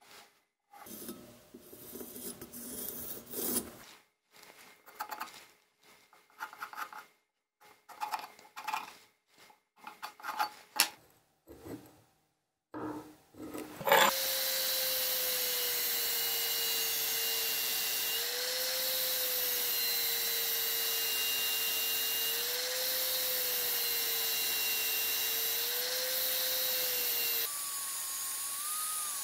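Short irregular scratching and handling strokes of a pencil marking out a steel knife blank. About halfway through an electric grinder starts and runs steadily with a whine that wavers slightly in pitch as its wheel grinds notches into the steel. Near the end the whine steps higher and quieter.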